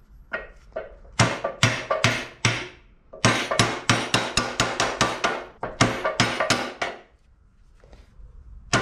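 A quick series of sharp metallic knocks, about three a second, as a steel angle-iron strike plate is worked into place against a locomotive frame; the knocking stops about seven seconds in.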